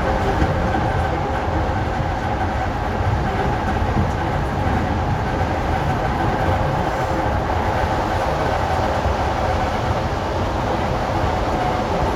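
ED4M electric multiple unit running along the track: a steady rumble with several steady whining tones held over it.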